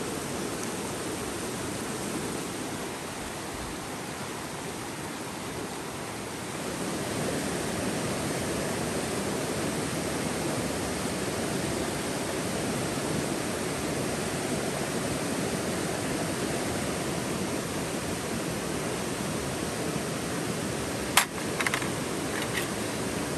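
Fast-flowing river rushing over rocks, a steady wash of water noise that grows a little louder after about six seconds. Near the end there is one sharp knock, followed by a few lighter ones.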